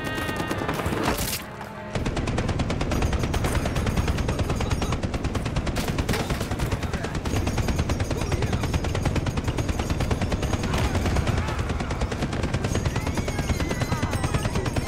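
Mounted belt-fed machine gun firing in a long continuous burst, a dense rapid stream of shots that starts about two seconds in and does not let up, with film score underneath.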